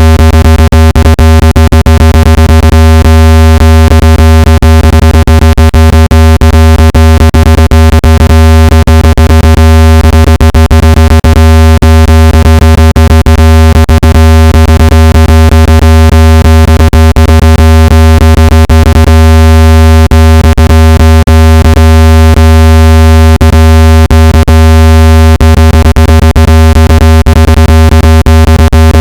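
Synthetic speaker-cleaning tone played at full volume to vibrate dust and moisture out of a phone speaker: a loud, steady deep hum with a stack of steady higher tones above it, broken by frequent irregular clicks.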